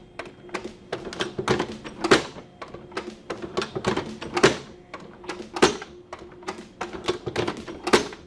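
Flexco XP hydraulic staple applicator being cycled along the belt splice: a quick run of sharp metallic clacks and clicks as the handle is worked, the tool advanced and staples driven. The loudest clacks come about every one to two seconds over a faint steady hum from the running hydraulic power pack.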